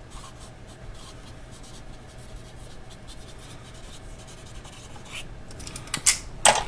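Sharpie marker writing on notebook paper: faint scratchy strokes of the felt tip, with a few louder sharp clicks near the end.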